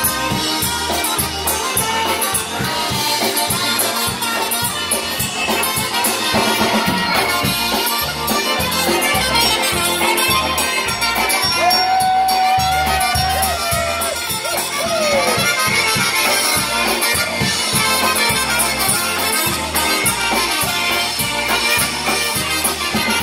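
Live polka band playing an instrumental passage: piano accordion and concertina with trumpet and saxophone over electric bass and drums, on a steady beat. A horn holds one long note about halfway through, ending in a short slide.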